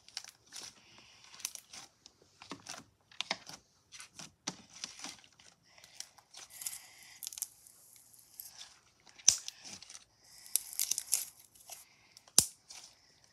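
Pink slime being squeezed and kneaded by hand, giving irregular wet crackling and squishing. Two sharp pops stand out, about nine and twelve seconds in.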